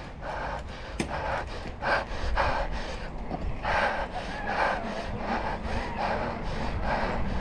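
A cyclist's heavy breathing while pedalling, a rasping breath about once or twice a second, over the low rumble of wind on the microphone and tyres on asphalt.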